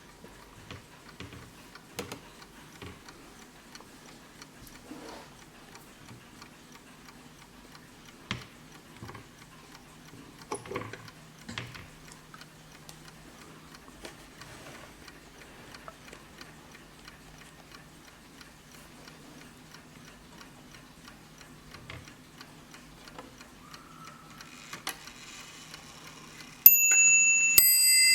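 Warmink WUBA oak mantel clock ticking, with a few louder clicks along the way. Near the end its hammer strikes the bell twice in quick succession, and the bright tones ring on.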